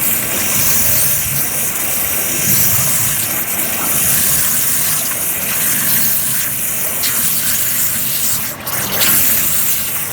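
CNC waterjet cutter's high-pressure jet cutting plastic: a loud, steady hiss that is strongest in the high end, with a brief sharp burst near the end.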